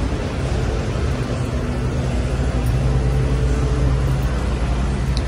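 Diesel truck engines idling: a steady low rumble with a constant hum.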